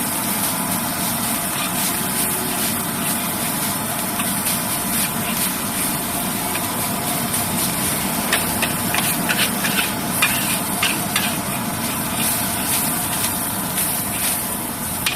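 Fried rice stir-fried in a wok: steady sizzling, with a metal spatula scraping and clanking against the wok, the strikes coming thickest from about eight to twelve seconds in, over a steady low hum.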